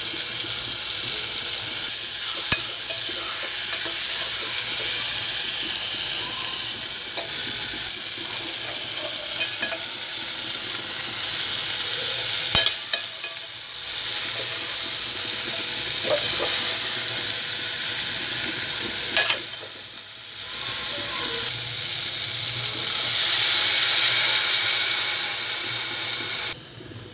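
Chopped vegetables, spices and Maggi noodles frying and sizzling in an aluminium pot as they are stirred, with a few sharp clinks of a metal spoon against the pot. The sizzling drops away sharply near the end as water is poured in.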